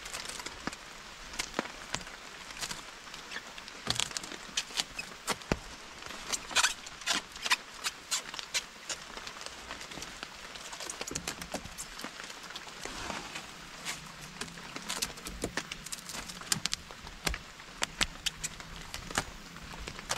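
Plastic stretch wrap being pulled off its roll and wound around a bamboo bed frame, crinkling and crackling in many quick, sharp clicks.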